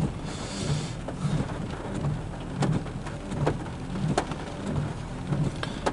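Rain tapping on a car's roof and windshield, heard from inside the car as scattered sharp taps over a steady patter, with a low, pulsing rumble underneath.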